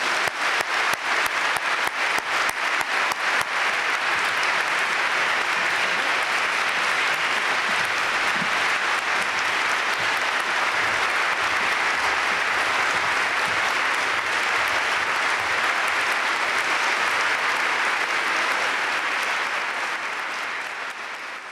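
Audience applauding. At first the claps are distinct, then within a few seconds they merge into dense, steady applause, which fades near the end.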